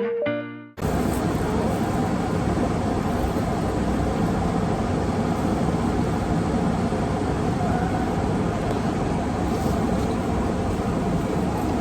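Steady street traffic noise, an even wash of passing cars and engines, cutting in suddenly about a second in after a brief tail of music.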